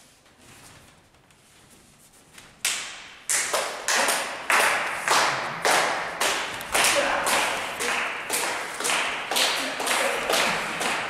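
Wrestling crowd clapping in unison to a steady beat, a little under two claps a second. The clapping starts about two and a half seconds in after a quiet start, and each clap echoes briefly.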